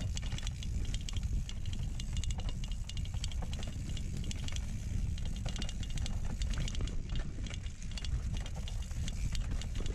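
Mountain bike riding down a dirt singletrack: tyres on dirt and dry leaves, the bike rattling and clicking over bumps, over a steady low rumble from the moving camera.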